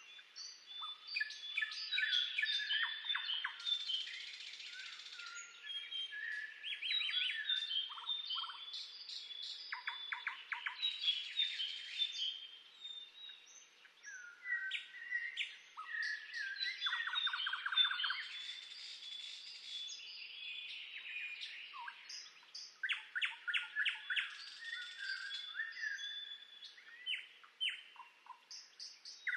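Several songbirds singing at once: overlapping chirps, rapid trills and clear whistled notes.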